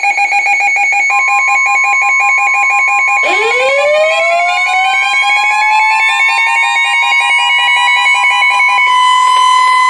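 Emergency alert tones layered together: a rapidly pulsing electronic beep, joined about a second in by a steady single tone. About three seconds in, a siren starts winding up, rising in pitch and then holding high, while the pulsing beep stops near the end.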